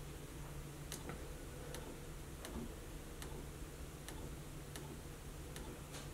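Faint light clicks, roughly two a second and not quite evenly spaced, from fingertip taps on the touchscreen control panel of an HP color laser printer, over a low steady hum.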